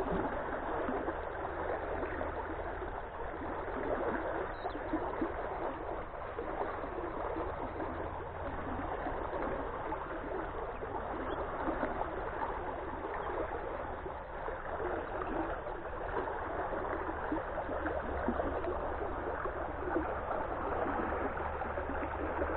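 Steady rush of water churning out of a partly submerged pipe into a flooded creek.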